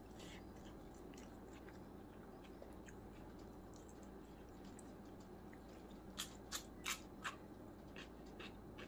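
Chewing a mouthful of chicken biryani rice, with soft wet mouth clicks throughout and a quick run of four louder smacks a little past the middle, over a steady low hum.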